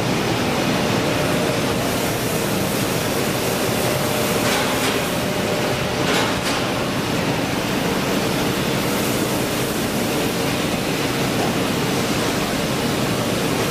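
Industrial machinery running: a loud, even hiss and hum with a few steady tones, and two brief hisses about a third and halfway through.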